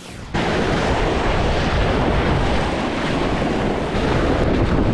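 Surf surging and foaming against jetty rocks, mixed with heavy wind noise on the microphone; it comes in suddenly a moment in and then holds steady and loud.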